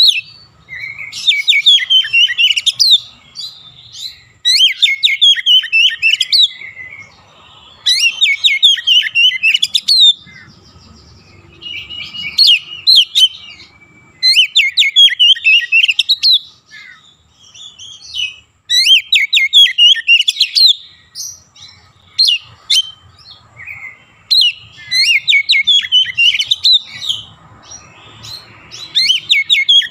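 Oriental magpie-robin singing loudly in repeated bursts of rapid, chattering notes, each phrase lasting a second or two with short pauses between.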